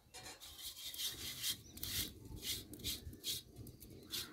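A wet hand rubbing over an iron tava held over a wood fire, in short repeated strokes about two a second. The tava is being wiped with water so the rotis won't stick.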